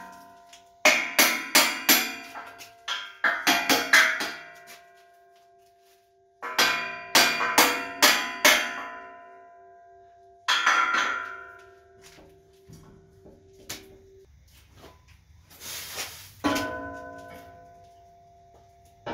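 Hand hammer striking steel at the base of a hydraulic press cylinder, in several quick runs of sharp blows with pauses between. Each run leaves a clear metallic ring that lingers for a second or more.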